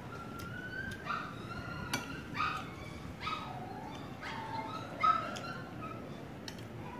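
An animal's short, high-pitched whining calls, about five with pauses between, the loudest about five seconds in. Light clicks of a spoon and fork on a plate come in between.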